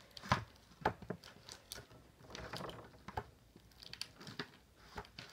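Gooey homemade glue slime being squeezed and stretched by hand on a plastic lid: irregular soft sticky clicks and pops, about two or three a second.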